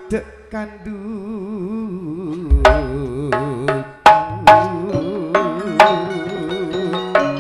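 Madurese gending music: a melody line with a wide, fast vibrato, joined about two and a half seconds in by a deep drum stroke and a run of struck percussion notes that ring on.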